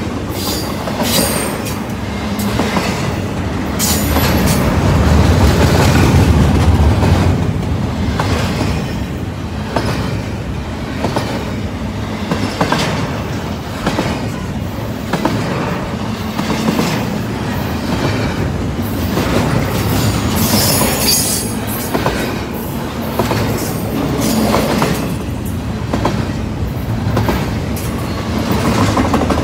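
Loaded double-stack container well cars of a freight train rolling past: a steady rumble of wheels on rail with repeated clickety-clack over the rail joints. A high wheel squeal rises now and then, loudest about twenty seconds in.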